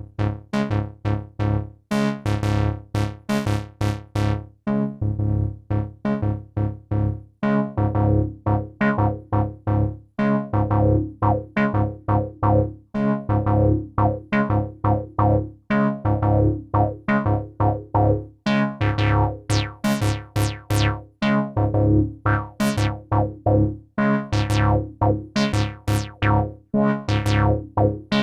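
IK Multimedia Uno Synth, a monophonic analog synthesizer, playing a fast repeating sequence of short bass notes. Each note starts bright and quickly closes down in a filter sweep.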